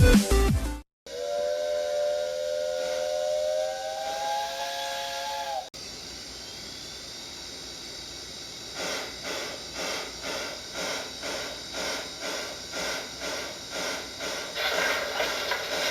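Model-railway sound box playing steam locomotive sounds: a chord whistle held for about four seconds and rising slightly in pitch, then hissing steam, then steady exhaust chuffs, about two a second, as the engine sound gets underway.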